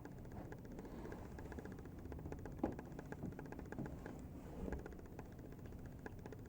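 Galaxy 3714 box fan switched off and coasting down, making faint, rapid, even ticking, with one sharper click about two and a half seconds in.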